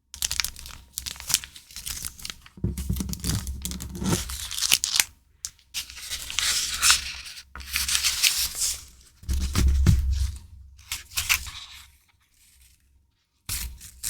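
Stationery packaging being handled, rustling and tearing in irregular bursts, with a few soft thumps of items set down.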